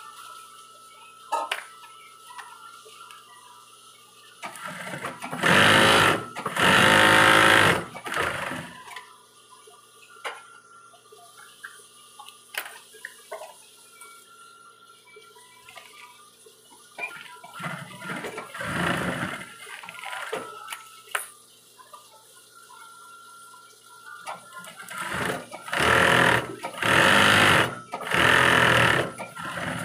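Industrial sewing machine stitching fabric in short runs of a second or two: two runs a few seconds in, a softer one around the middle, and three close together near the end. A steady hum sounds between the runs.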